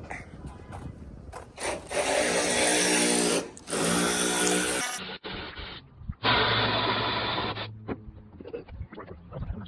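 A handheld power tool, such as an electric drill or driver, running in short steady bursts: two runs of about a second and a half, then a lower-pitched run a little later, with small knocks of parts being handled in between.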